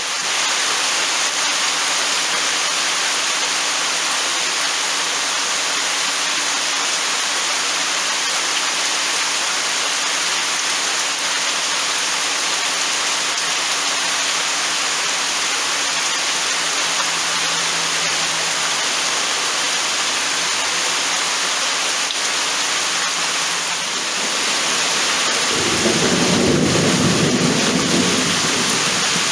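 Heavy rain falling steadily with a constant hiss. Near the end a low rumble of thunder swells up for about three seconds.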